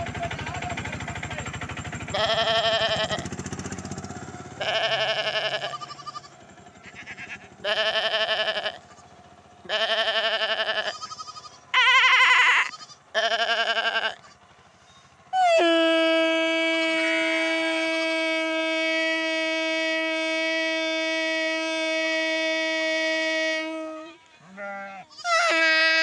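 A man mimicking sheep and goat bleats with his voice: six short bleats a second or two apart, one sliding in pitch. After these comes a long, steady, horn-like tone lasting about eight seconds, which stops briefly and starts again near the end.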